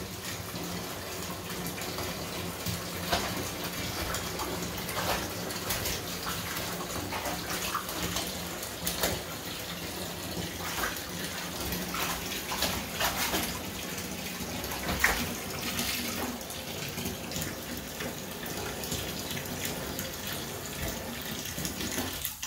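Bath faucet running into a partly filled bathtub, a steady rush of water, with scattered short splashes and knocks as a serval paws in the water after fish.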